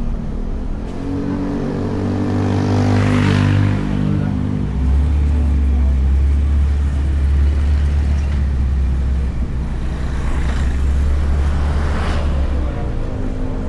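Honda Beat scooter's single-cylinder engine running under way. Its note changes about four seconds in and then holds steady. Two brief swells of rushing noise come about three seconds in and again near the end.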